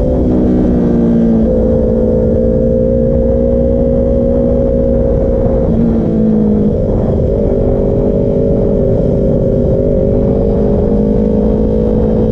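Sport motorcycle engine running at steady cruising revs under the rider, over loud wind rush on the microphone. The engine note shifts briefly about a second in and again around six seconds in, then holds steady.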